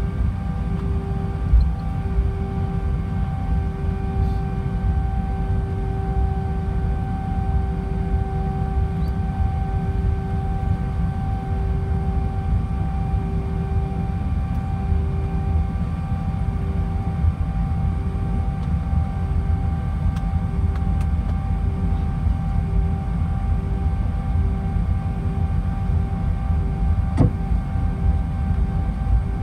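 Airbus A320ceo taxiing with its engines at idle, heard inside the cabin: a steady low rumble with faint steady whining tones above it. A single sharp click near the end.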